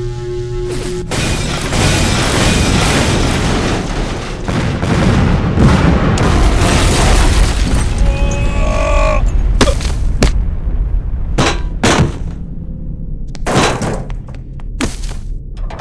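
Dubbed-in action sound effects: a long run of booming explosions with a deep rumble, then a string of separate sharp blasts and impacts in the last several seconds.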